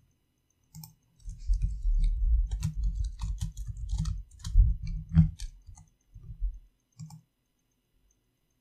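Computer keyboard typing: a quick run of keystrokes with dull thumps, then a few single keystrokes before it stops.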